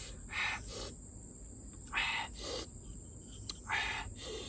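Three short breathy mouth sounds, each about half a second long and spaced roughly a second and a half apart, from a man eating snails picked off bamboo skewers.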